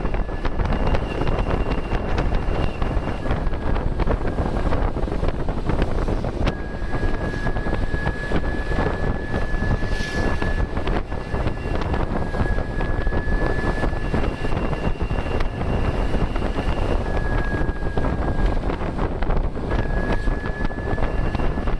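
Ashok Leyland BS-3 bus's turbo-intercooled diesel engine pulling uphill under load, with a heavy rumble and a thin, steady high turbocharger whistle that comes and goes, dropping out briefly around five and eighteen seconds in.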